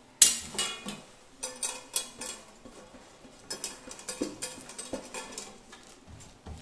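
Fingers rubbing ghee across a stainless steel plate, with irregular scrapes and light metal clinks and knocks as the plate is handled; one sharp clink comes just after the start.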